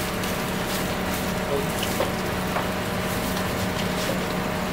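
Hot oil sizzling steadily in a wok as breadstick dough deep-fries, with a steady low hum underneath.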